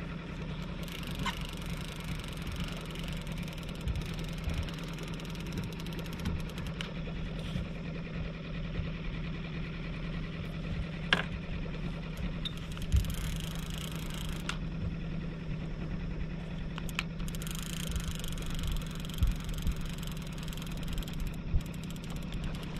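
A boat's motor running steadily at trolling speed, under the whir of a fishing reel being cranked as a hooked trout is reeled in. A few sharp knocks stand out over it.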